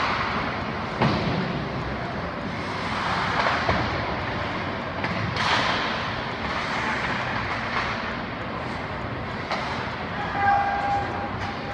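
Ice hockey skates scraping and hissing on the rink ice, with several sharp cracks of sticks striking pucks on shots at the goal, and a brief steady tone about ten seconds in.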